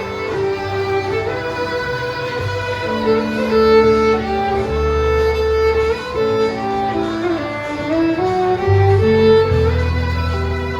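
Fiddle playing a sustained, sliding lead melody over acoustic guitar and bass in a live country band.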